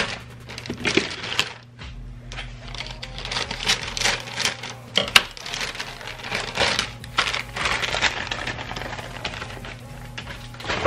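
A plastic bag and aluminium foil being handled: dense rustling and crinkling with many light clicks, over a steady low hum.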